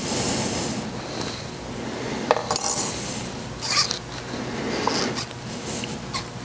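Small metal tools and tubing being handled on a workbench: a brief hiss at first, then scattered sharp metallic clinks and rattles, the loudest between about two and four seconds in, over a faint steady low hum.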